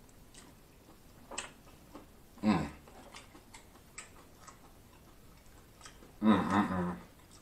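Mouth sounds of someone eating lobster tail: faint wet clicks and smacks of chewing, roughly once a second. A short vocal sound comes about two and a half seconds in and a longer one near the end.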